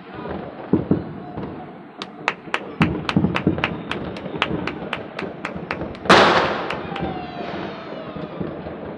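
New Year's Eve fireworks and firecrackers: dull distant thuds, then a rapid even run of sharp cracks at about four a second for nearly four seconds. About six seconds in comes one loud bang with a long fading tail.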